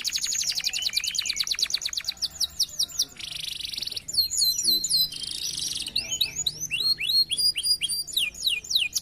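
Domestic canary singing a continuous song made of distinct phrases. It opens with a fast trill of rapidly repeated notes, has two buzzy rolls in the middle, and finishes with a string of falling whistled notes.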